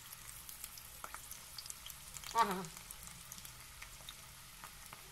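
Batter-coated lotus stem sticks deep-frying in hot oil in an iron wok: a steady sizzle with fine crackling. A brief voice cuts in about two and a half seconds in.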